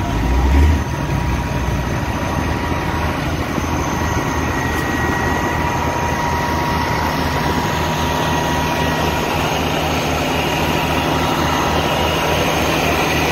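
Diesel engine of a Dynapac asphalt paver running steadily with an even low pulse and a steady whine, under a haze of wind noise. A loud low thump comes about half a second in.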